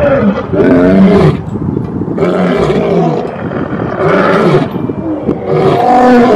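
Two male lions roaring together: a series of deep roars, each about a second long, falling in pitch, with short gaps between them.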